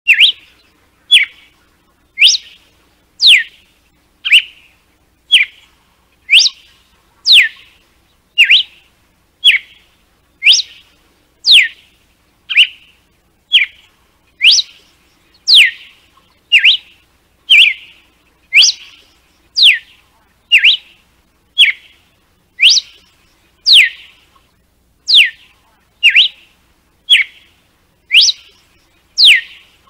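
Red-cowled cardinal (galo-de-campina) singing its whip-like 'açoite' song: loud, clear single notes repeated about once a second, many sweeping steeply down in pitch, alternating with shorter notes.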